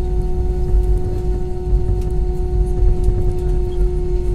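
Cabin noise of an Airbus A320 taxiing slowly, heard from a seat over the wing: a steady low rumble with a steady droning hum.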